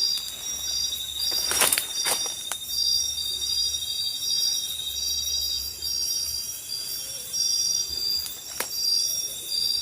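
Chorus of insects, crickets among them: steady high-pitched trilling with one pulsing note, broken by a few sharp clicks just under two seconds in and again near the end.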